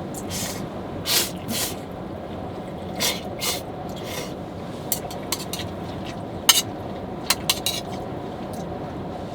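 Steady rumble of strong wind around a parked car, with a series of short scrapes and sharp clicks from camping gear and dishes being handled, the sharpest clicks coming about two thirds of the way through.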